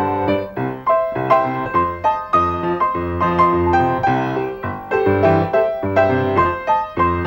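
Piano music: quick successive struck notes over a line of lower bass notes.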